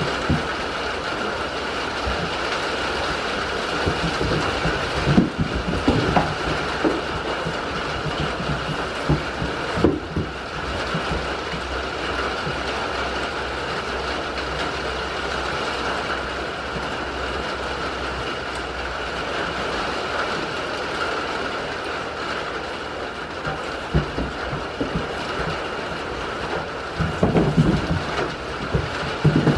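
Steady hiss of rain drumming on a corrugated metal shed roof, with scattered low knocks and bumps, a cluster of them near the end.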